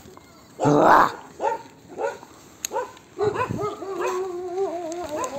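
Pack of large shepherd-type dogs barking: a loud bark about a second in, then several short barks, and a longer wavering call over the last two seconds.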